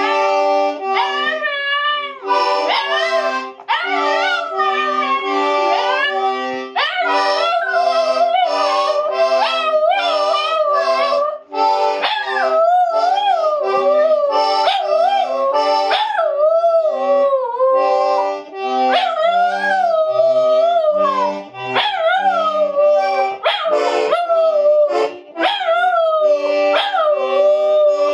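A Shiba Inu howling along to music: long, wavering howls that slide up and down in pitch, breaking off and starting again every few seconds over a steadily played melody.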